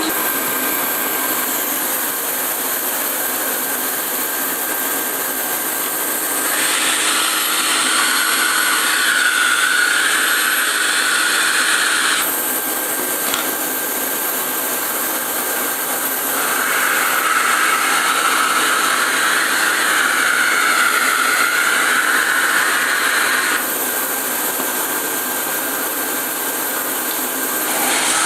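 A 1988 Hoover Sensotronic System 20 canister vacuum cleaner running steadily. Twice, for about six seconds each time, the sound gets a little louder and takes on a wavering higher whine before settling back.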